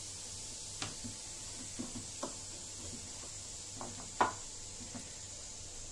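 Coarse fresh-corn batter being mixed in a bowl: a few faint, irregular taps and scrapes, the clearest about four seconds in.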